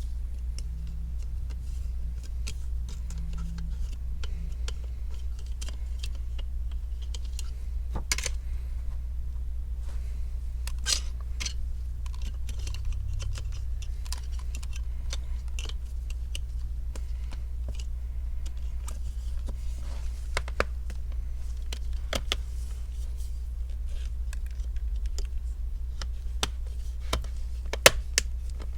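Scattered light clicks and taps of a laptop's plastic hinge cover and casing being handled and pressed into place over the hinge, with a few sharper snaps, over a steady low hum.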